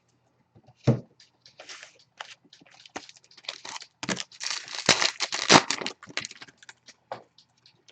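Crinkling and tearing of a trading-card pack wrapper, heard as a run of quick rustles and clicks that is densest about four to six seconds in.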